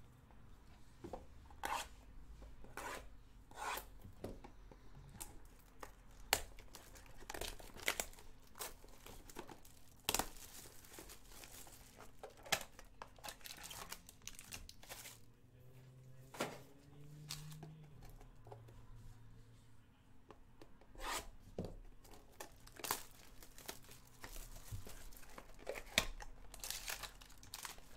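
Panini Absolute football card mini boxes and pack wrappers being torn open by hand: irregular rips, crinkles and clicks of cardboard and wrapper.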